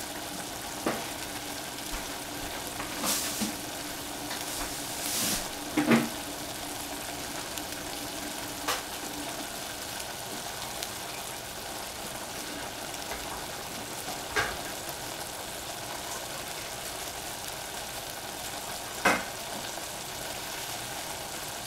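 Oyster mushrooms and cabbage sizzling in a saucepan as the last of the cooking water boils away, a steady hiss broken by a few sharp pops.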